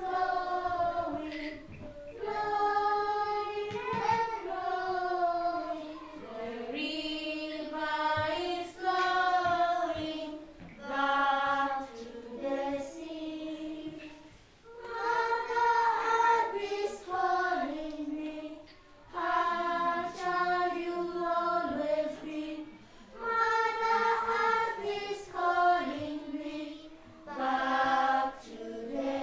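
A group of young children singing a song together, with a woman's voice among them, in phrases a few seconds long. There are a few hand claps along the way.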